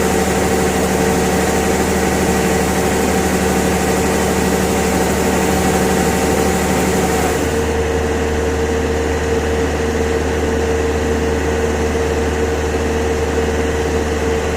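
Harvesting machine's engine running steadily, a constant drone with a few steady tones. About halfway through the sound changes abruptly and the high hiss falls away.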